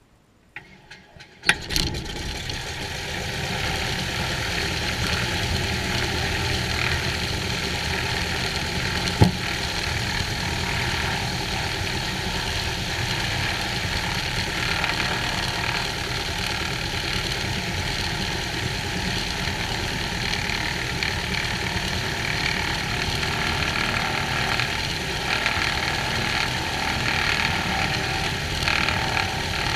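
A Cessna 182H's Continental O-470 six-cylinder engine being started: a few brief cranking bursts, then the engine catches about a second and a half in and settles into a steady idle. One sharp click stands out a few seconds after it catches.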